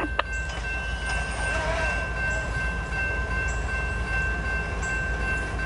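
Railroad grade-crossing warning bell ringing steadily while the gate arms lower, over the low rumble of approaching diesel locomotives.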